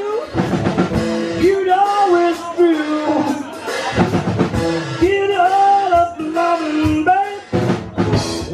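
Live acoustic rock: a man sings a melody into a microphone over two acoustic guitars, one a Takamine, strummed in a steady rhythm.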